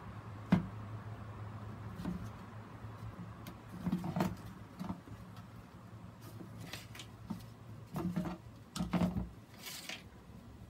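Scattered light knocks and clicks of a plastic plant-mounting grid being handled and turned by gloved hands, with some rustling, over a steady low hum.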